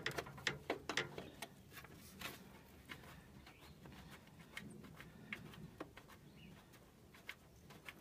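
Faint, scattered clicks and taps of a screwdriver and small screws being handled at a plastic furnace blower cover, thickest in the first second or so.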